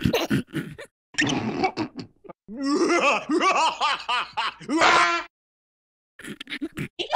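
Cartoon larva character's voice: a few short squeaky exclamations, then a long run of high-pitched laughter from about two and a half seconds in to about five seconds in.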